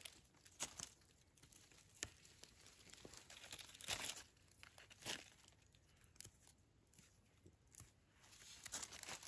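Faint, scattered rustling and crackling, with short sharper crackles every second or so.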